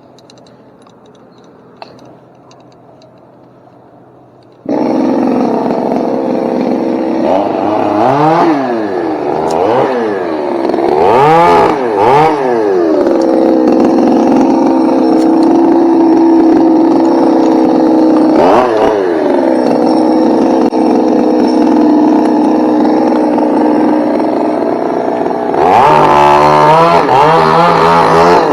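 Chainsaw starting up abruptly about five seconds in, then revving up and down several times and running steadily at high speed while cutting stubs off the oak's limbs.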